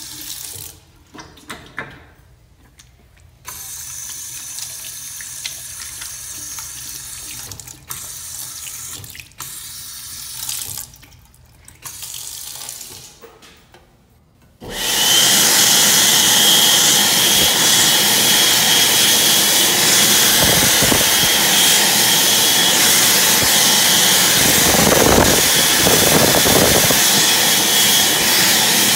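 Water running from a sink tap, stopping and starting a few times. About halfway through, an ASI 0133 hand-in electric hand dryer starts abruptly, blowing loudly and steadily with a high, thin whine.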